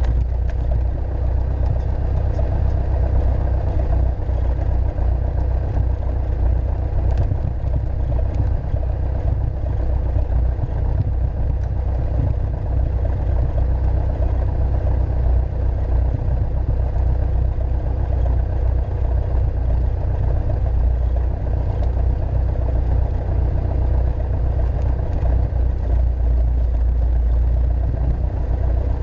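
Piper Archer's four-cylinder Lycoming engine and propeller running steadily, heard from inside the cockpit as the plane lines up and rolls down the runway for takeoff.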